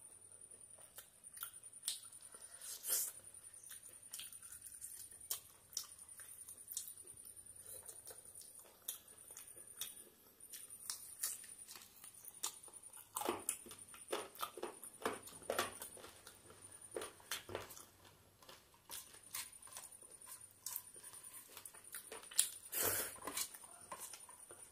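Close-up eating sounds of rice and curry eaten by hand: wet chewing, lip smacks and fingers squelching rice against a steel plate, in many short clicks that come thickest about halfway through and again near the end. A faint steady high-pitched whine sits behind them, breaking off now and then.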